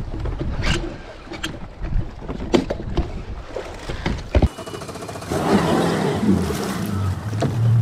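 Wind buffeting the microphone, with several sharp knocks and clunks from gear being handled on a bass boat's bow. After about four and a half seconds it changes to a steadier sound: a boat's outboard motor running low, with water noise.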